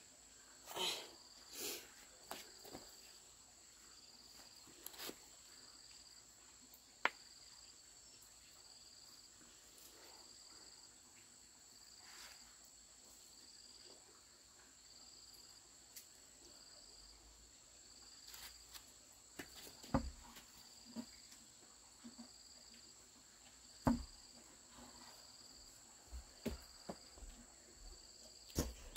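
Crickets chirping in a steady slow rhythm, a little over one chirp a second, over a continuous high insect drone. A few sharp knocks and thuds break in now and then, the loudest around the middle and two-thirds of the way through.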